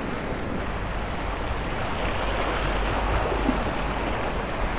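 Small waves washing against the rocks of a jetty, a steady wash of surf noise with a low rumble underneath.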